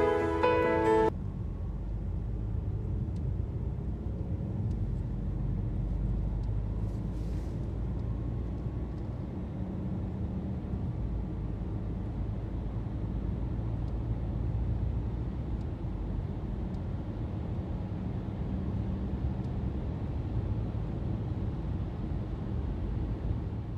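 Car driving: a steady low engine and road rumble.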